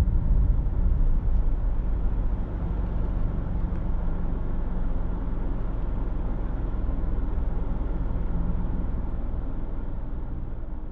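A car driving: steady low engine and road rumble that gradually gets quieter.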